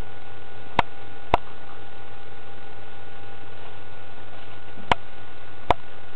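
Steady electrical hum with four sharp clicks, two about a second in and two near the end.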